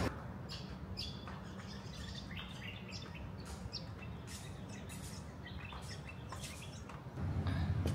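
Small birds chirping: many short, high chirps scattered irregularly, over a low steady background rumble. Near the end a louder low rumble comes in.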